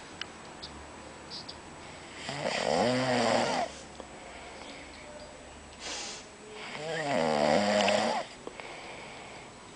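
A man snoring in his sleep: two loud snores about four seconds apart, with a softer breath between them.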